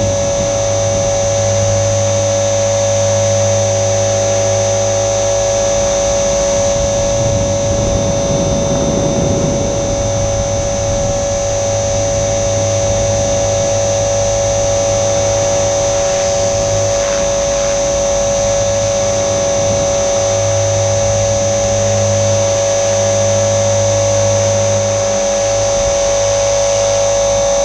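Electric motor and drive gears of an Align T-Rex 470L RC helicopter in flight, giving a steady high whine over rotor noise, picked up by a camera mounted on the helicopter itself. A lower hum drops away for a few seconds past the middle and then returns.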